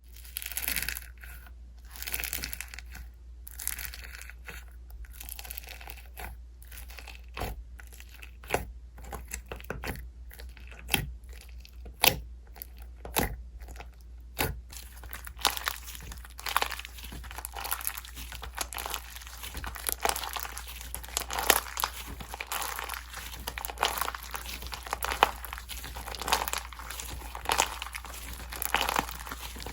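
Slime being pressed and squished by hand, making sticky clicks and crackles. The clicks are spaced out at first and run together into a denser crackle from about halfway through.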